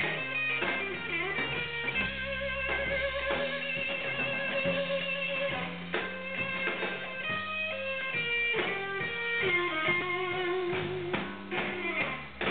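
A live band plays, led by an electric guitar holding long notes with vibrato over a moving low line and occasional drum hits. It is recorded through a camera's own microphone, which makes the sound thin and dull.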